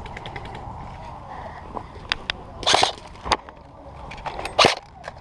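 Airsoft guns firing: a few sharp snaps and two brief, louder bursts in the second half.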